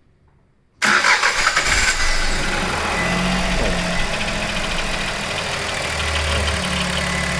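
Chevrolet Onix Plus's three-cylinder engine starting from cold, heard from the open engine bay: it catches about a second in and settles into a steady idle. A little extra noise at start-up soon stops.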